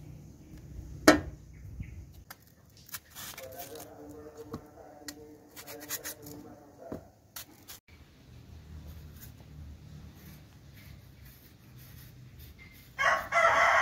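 Kitchen knife peeling and chopping young mango and cucumber by hand: scraping of the blade on skin and flesh, with scattered sharp clicks of cuts. A steady hum of several tones runs for a few seconds in the middle, and near the end a loud rough scrape lasts just under a second.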